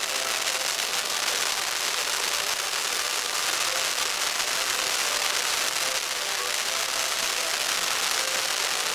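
Firework fountains spraying sparks: a steady, dense hiss of many fine crackles with no single big bangs.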